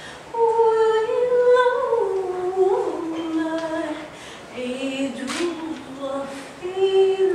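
A woman singing unaccompanied, wordless long held notes that slide from one pitch to the next, with a brief pause about four seconds in and a short hiss a little after.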